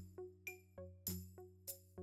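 Background music: short struck notes that ring and fade, about three a second, over a deep held bass note.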